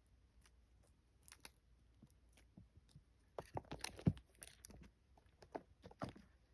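Kittens tussling with a hat: irregular soft scrapes, taps and crunchy clicks of claws and teeth on the fabric, busiest a little past the middle.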